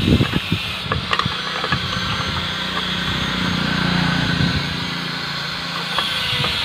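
An engine running steadily, growing louder towards the middle and easing off near the end. A few light metallic clicks come from steel rebar being bent on a hand bending jig.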